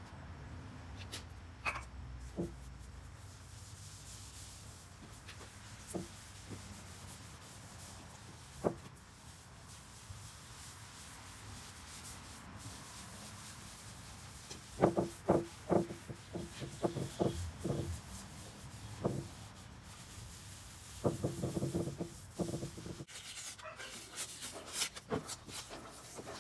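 A cloth rag rubbing stain into a wooden tabletop, with a few light knocks. About halfway through, and again later, come two short spells of quick back-and-forth rubbing strokes, about four a second.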